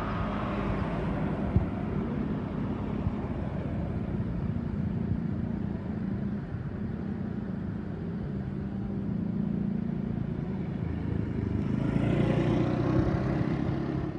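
Motor vehicle engine running steadily on the road, a low hum that swells louder near the end as traffic passes, with one sharp knock about a second and a half in.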